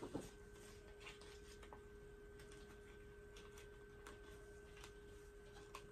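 Near silence with a faint steady tone and a scattering of soft clicks and taps as paper sheets are pressed onto the metal binder rings of an album.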